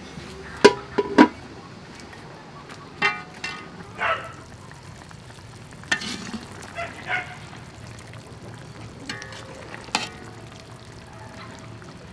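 Utensils clinking and knocking against a metal cooking pot and a ceramic bowl while stew is dished up. There are three sharp knocks in the first second or so, then scattered clinks, some ringing briefly.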